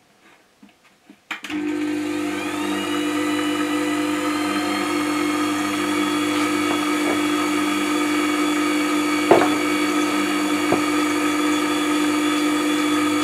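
Record Power WG250 wet stone sharpener switched on about a second and a half in: the motor spins up with a short rising whine, then runs with a steady hum while the leather honing wheel turns. A few light knocks sound over it.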